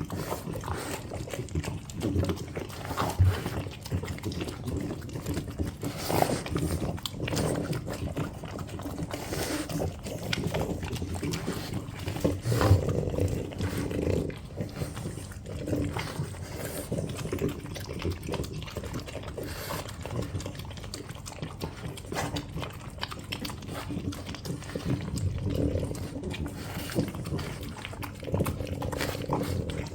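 French bulldogs eating and licking at food, a continual run of irregular smacking and snuffling sounds.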